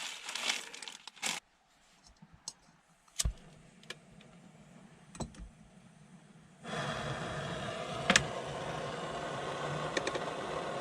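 A plastic noodle packet crinkling briefly, then a few light clicks. From about two-thirds of the way in comes the steady hiss of a camp stove burner heating a pot of noodles, which starts and stops suddenly.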